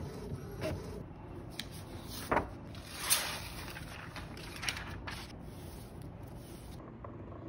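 Steady low machine hum with a few sharp knocks and a rustle about three seconds in, the sounds of printed card sheets and office machines being handled.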